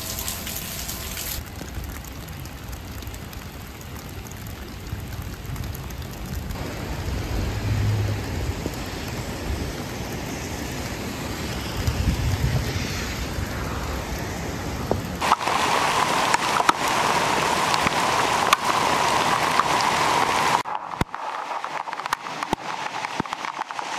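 Steady rain and rushing water, changing abruptly several times as short storm shots cut from one to the next, with a low rumble under the first half and a brighter, louder hiss of rain near the end.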